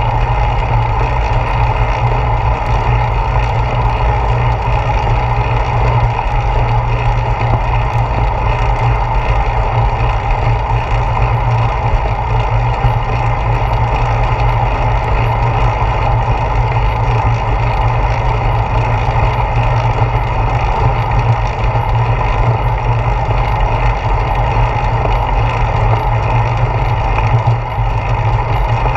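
Steady, loud rush of wind and road rumble from a bicycle ridden quickly over pavement, picked up by a handlebar-mounted GoPro Hero 4, with a brief dip near the end.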